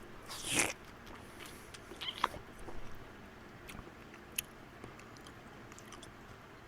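Eating instant noodles: a short slurp about half a second in, then scattered small clicks and smacks of chewing and utensils.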